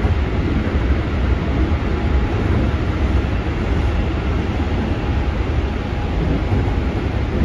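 Keikyu 600 series Toyo GTO-VVVF electric train running at speed through a tunnel, heard from inside a passenger car: a steady, loud rumble of wheels on rail, heaviest in the low end.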